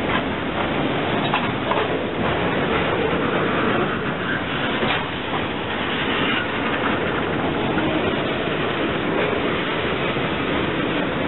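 Freight train boxcars rolling slowly past: a steady rumble of steel wheels on rail, with a few sharp clicks and clanks from the cars.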